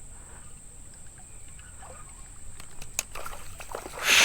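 Creek water disturbed by a hooked smallmouth bass being played in: faint trickling with a few small clicks, then a short, loud splash about four seconds in.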